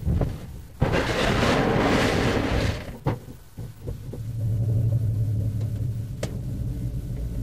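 Inside the cab of a Toyota Hilux rolling over at 80 km/h with no rollover protection: a sharp impact about a second in, then two seconds of loud crashing and scraping as the unprotected cab body crushes against the ground, and another hit near three seconds. Once the truck comes to rest, a steady low hum remains.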